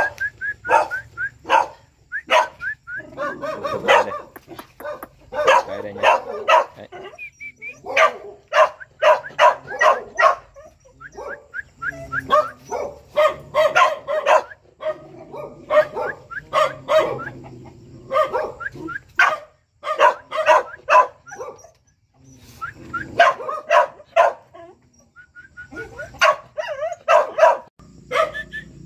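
A female snake-hunting dog barking over and over, in runs of several barks with short pauses between, and a few thin high cries among them.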